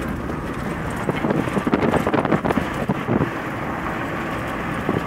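Wind buffeting the microphone over the steady rumble of a moving road vehicle, with the gusts loudest from about one to three seconds in.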